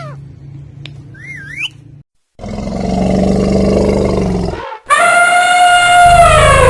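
Animal calls cut one after another: a few faint sliding whistles, then after a brief silence a loud rough roar lasting about two seconds, then a loud, long, clear call that dips in pitch at the end.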